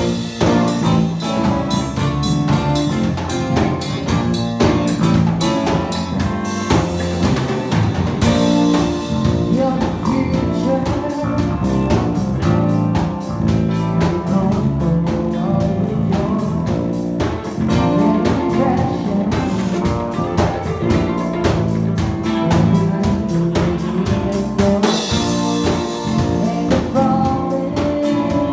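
Live band playing a song: drum kit keeping a steady beat under the instruments and a singer.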